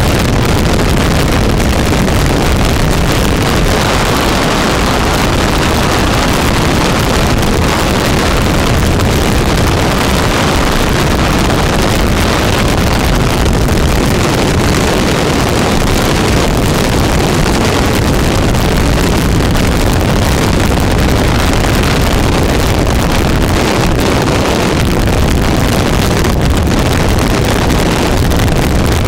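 Wind buffeting a microphone on the bow of a 29-foot big-block powerboat running at high speed through chop, a loud steady rush with the boat's engine and hull noise underneath.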